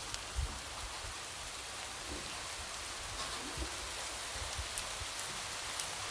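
Light rain falling steadily: an even fine hiss with scattered sharp taps of single drops and a few soft low thuds.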